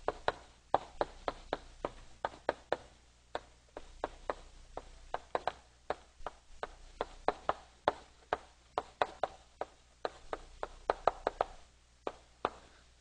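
Chalk tapping and scraping on a blackboard as a line of text is written out: an irregular run of sharp little taps, several a second, one for nearly every stroke.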